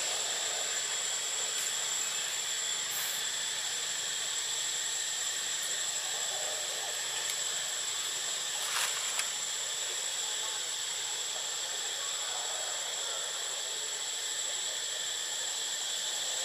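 Steady high-pitched drone of insects in the tree canopy, unchanging throughout, with a brief faint crackle about nine seconds in.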